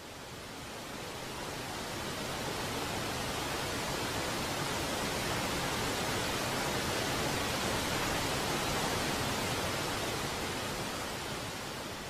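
Steady rushing noise of a waterfall's falling water, fading in over the first couple of seconds.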